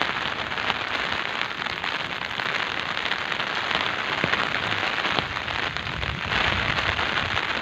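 Heavy, steady rain: a dense hiss of countless drops hitting the ground and surfaces around.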